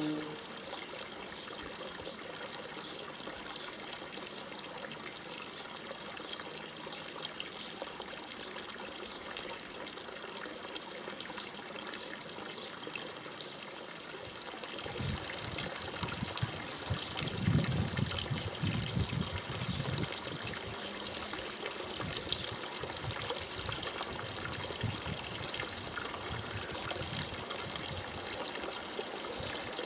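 A thin stream of water from a fountain spout pouring steadily into a stone trough, splashing and trickling. About halfway through it grows fuller and louder, with a low rumble added.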